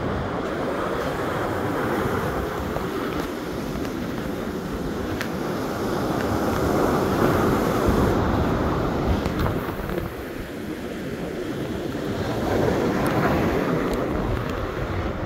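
Ocean surf breaking on a sandy beach, a steady wash of waves that swells louder about halfway through and again near the end, with wind buffeting the microphone.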